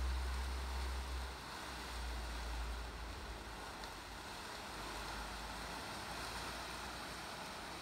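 Wind buffeting the microphone: a low rumble over a steady hiss, strongest for about the first second and a half, then easing.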